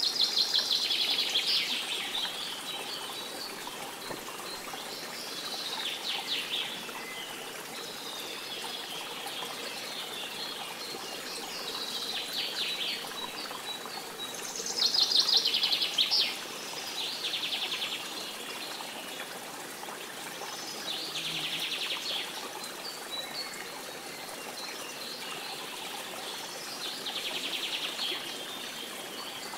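A songbird singing short falling trills of rapid notes, repeated every few seconds, over the steady rush of running water.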